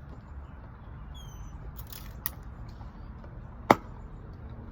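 Quiet room noise with a steady low hum, a few faint high chirps, and one sharp click a little after three and a half seconds in.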